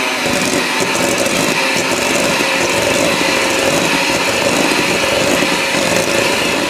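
Electric hand mixer running steadily on its low setting, its twin beaters creaming butter and brown sugar in a stainless steel bowl.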